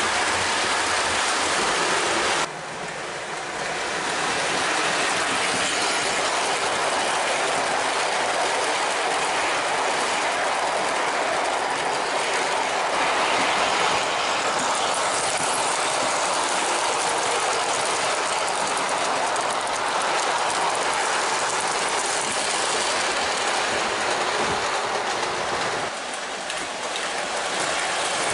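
O gauge model freight train rolling on three-rail track: a steady metallic clatter of wheels on the rails as the cars pass close by, dipping briefly twice.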